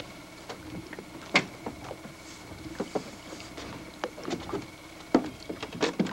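Knocks and clunks of feet and gear against the hull of an aluminium boat as a man steps in and moves about in it, with the loudest knocks about a second in and about five seconds in. A faint steady whine runs underneath.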